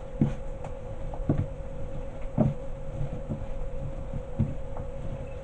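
Hands kneading empanada dough on a floured stone countertop, with dull thumps about once a second as the dough is pressed down. A steady hum runs underneath.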